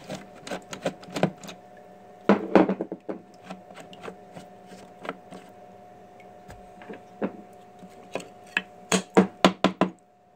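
Irregular knocks and clacks of wet carbon fiber parts being handled and lifted off a fixture on the CNC router bed, loudest in a cluster about two and a half seconds in and again near the end, over a steady machine hum.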